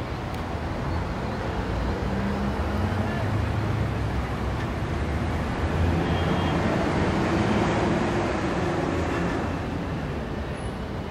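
City street traffic: a steady rush of passing cars that swells through the middle and eases near the end.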